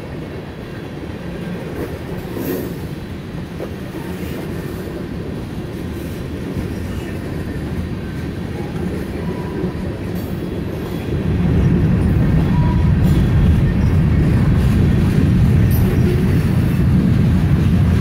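Freight train cars rolling past: the steady rumble and clatter of steel wheels on the rails, growing louder and deeper about eleven seconds in.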